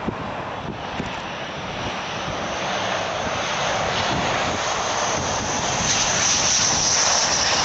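McDonnell Douglas F-15 Eagle's twin jet engines on landing approach, growing steadily louder as the aircraft closes in. A high whine comes up over the engine noise in the last couple of seconds.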